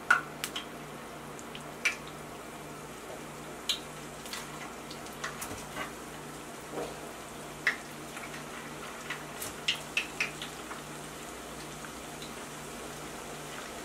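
Frozen churros frying in about two inches of hot oil in a cast-iron skillet: a steady sizzle with scattered sharp pops and crackles.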